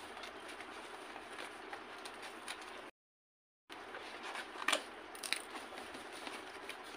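Faint handling of a cardboard box and packaging, with light clicks and two sharper snips of scissors cutting at the box about five seconds in. The sound drops out completely for under a second about three seconds in.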